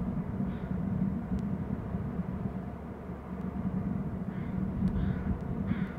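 Steady low outdoor rumble, with a few faint high chirps in the last couple of seconds.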